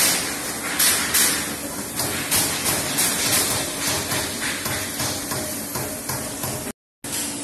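Trumpf Trumatic 500 CNC punching press punching sheet metal: a quick series of sharp punch strokes, a few a second and unevenly spaced, over a steady machine hum and hiss as the sheet is moved between hits. The sound cuts out briefly near the end.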